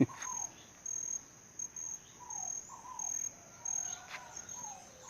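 An insect, cricket-like, chirping a high steady note in short regular pulses, with several short falling bird whistles under it.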